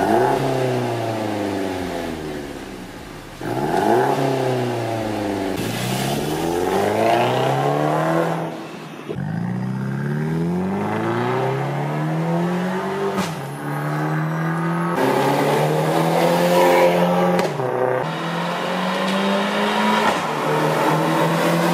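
Mercedes-Benz C200 (W205) turbocharged four-cylinder through an ARMYTRIX catless valvetronic exhaust with the valves open, revved over and over: about seven blips that rise and fall in pitch, a few held high for a second or two before dropping back.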